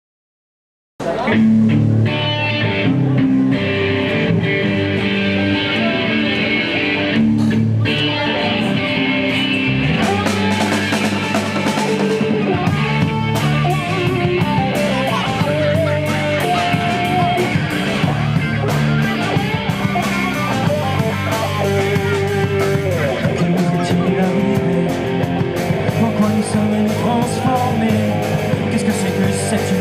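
Live rock band playing, electric guitar over drums, starting abruptly about a second in.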